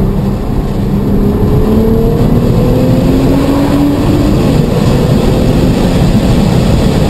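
Car engine accelerating hard, its note climbing in pitch in several steps that drop back between them, as through gear changes. It is heard from inside the car under heavy wind and road noise.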